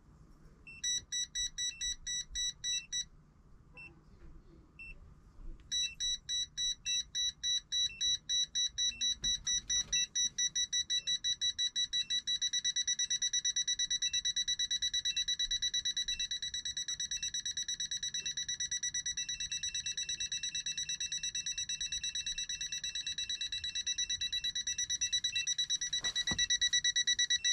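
TOPTES PT210 combustible gas leak detector beeping as it picks up a gas leak at a water heater's flex connector. It starts as quick pulses, pauses briefly, then beeps faster and faster until it becomes an almost continuous high tone, the sign of a rising gas concentration. A fainter, slower beep at another pitch sounds alongside.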